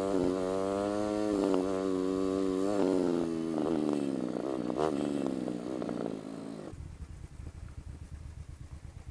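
Motorcycle engine running on a dirt trail, its revs rising and falling a few times with the throttle. About seven seconds in it drops to a quieter, low, pulsing rumble at low revs.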